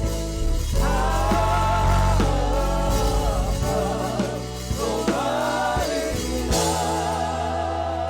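Live gospel praise-and-worship music: singers holding long notes with vibrato over a band with bass and drums.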